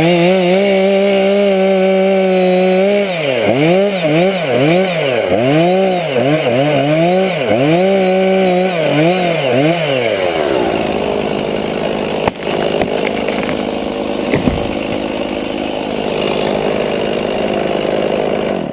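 Chainsaw engine running at a steady pitch, then its speed dips and recovers about once a second. It then turns into a rougher, noisier running sound, with a sharp knock partway through.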